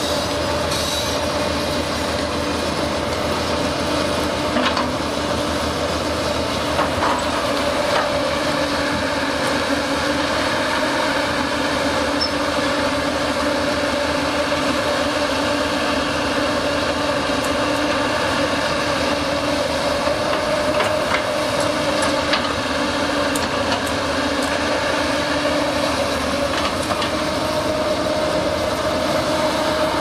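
JCB tracked excavator's diesel engine running steadily as the boom and bucket swing, a constant drone with a held hum and a few light knocks from the working machine.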